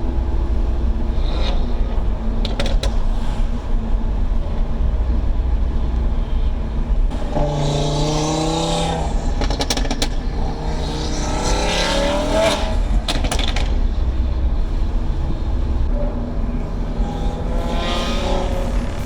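Tuned Audi RS3's turbocharged five-cylinder engine under way with a steady low rumble, its revs climbing twice in the middle, with a few sharp cracks from the exhaust.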